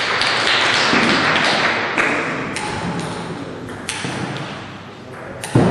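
Table tennis sounds between points: a few sharp taps of a ping-pong ball, then a louder thud near the end.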